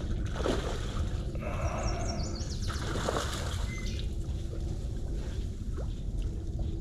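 Water sloshing and lapping with a few short splashes, likely stirred by a hooked fish fighting at the surface. A bird sings briefly in the background about a second and a half in.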